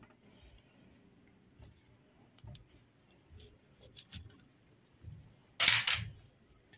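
Faint clicks and taps of a thin metal cookie cutter being pressed into soft dough on a wooden board and handled, with one louder short noisy burst about five and a half seconds in.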